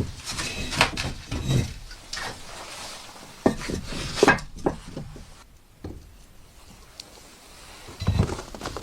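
Irregular knocks, clatter and rustling of objects being handled.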